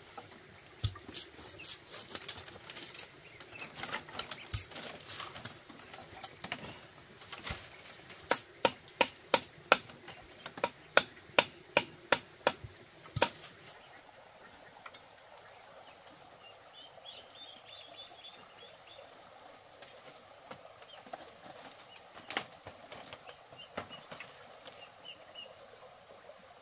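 Sharp knocks of a tool striking bamboo: scattered strikes at first, then a steady run of about ten louder blows, roughly two a second, about eight seconds in. Later the strikes give way to a few faint, short bird chirps.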